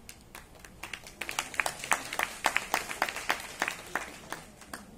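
Scattered applause from a small audience, heard as separate hand claps. They start sparse, come thick and fast in the middle, then thin out and die away near the end.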